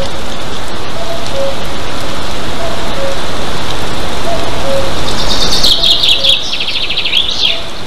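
Steady hiss of rain on the nest-camera microphone. Behind it, a faint two-note bird call repeats about every second and a half. About five seconds in comes a loud burst of rapid, high, falling bird calls that lasts a little over two seconds.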